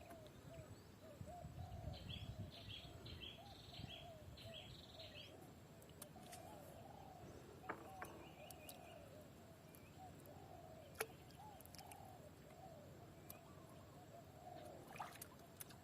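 Faint bird calls: a steady run of short low calls, with a quick series of higher chirps a couple of seconds in, and a few sharp clicks.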